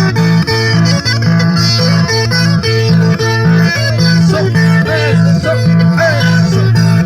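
Instrumental passage of a Cajamarca carnival song: plucked guitars over a steady, repeating bass line.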